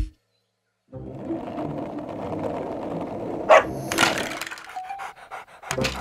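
Cartoon sound effects of plastic toy blocks clattering and rattling, with sharp clacks about three and a half and four seconds in and again near the end.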